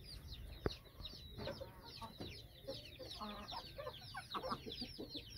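Aseel chickens clucking now and then over a steady patter of short, high chirps, with one sharp click about a second in.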